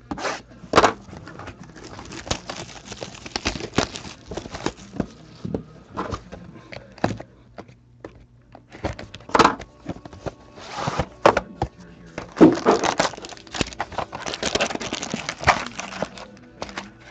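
Plastic shrink-wrap crinkling and tearing as a sealed Panini Prime Hockey card box is unwrapped and opened by hand, with irregular crackles and light taps of cardboard. The crinkling is densest in the second half.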